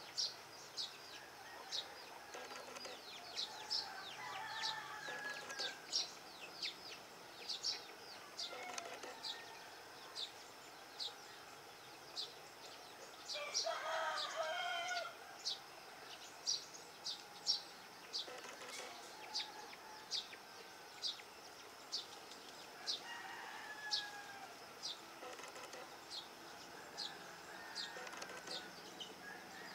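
Birds calling: a sharp, high chirp repeated about every two-thirds of a second throughout, with scattered lower calls and a rooster crowing once about halfway through. The distant turboprop's engines are not heard.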